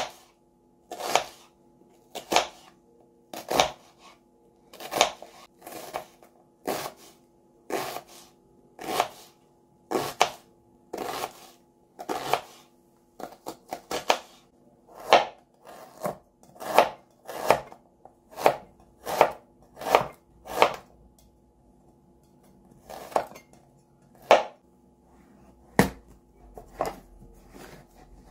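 Kitchen knife chopping a red onion on a plastic cutting board, single crisp knife strokes about once a second, coming quicker in the middle, with a short pause and then a few more strokes near the end. A faint steady hum sits underneath.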